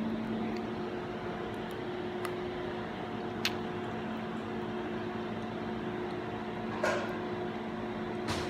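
Steady electrical appliance hum, several level tones over a hiss, with a few short clicks.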